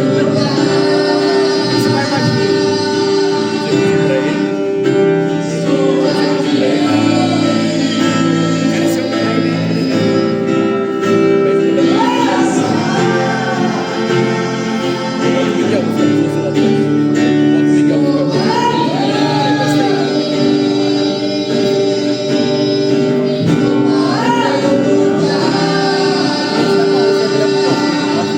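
Gospel worship music: voices singing a slow melody over long held instrumental chords.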